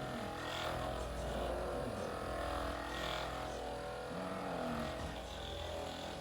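Electric percussion massage gun (Hypervolt) running steadily against a patient's back, a continuous motor buzz whose pitch wavers slightly as it is pressed into the muscles.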